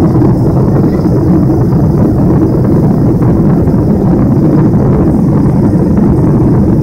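Steady roar inside a Boeing 747's passenger cabin in flight: the four jet engines and the rush of air past the fuselage, a loud, even, low-pitched noise.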